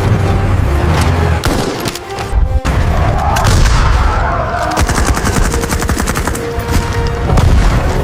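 Battle sound effects: rapid strings of gunfire-like shots and heavy booms over a music score, with a fast run of repeated strikes in the second half.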